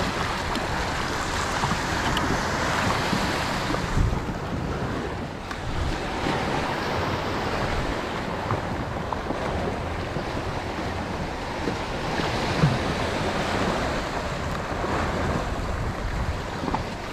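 Wind buffeting the microphone over waves washing and lapping, a steady rushing noise with two brief low thumps along the way.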